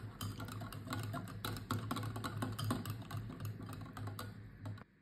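Wire whisk beating a yogurt and mango mixture in a glass bowl: quick, irregular light clicks of the wires against the glass, stopping shortly before the end.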